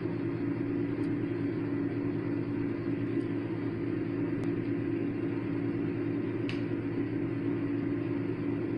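Steady mechanical hum of a motor or fan running, even in level throughout, with a few faint clicks.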